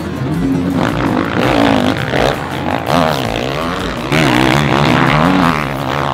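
Motocross bike engines revving hard at race pace, their pitch rising and falling again and again as the throttle opens and shuts.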